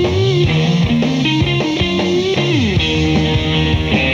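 A live rock band plays an instrumental passage: an electric guitar riff over bass guitar, with low notes sliding up and down.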